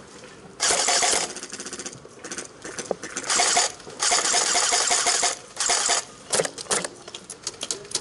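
Electric airsoft gun firing in rapid full-auto bursts, its motor and gearbox cycling fast, about five bursts, the longest a little over a second in the middle.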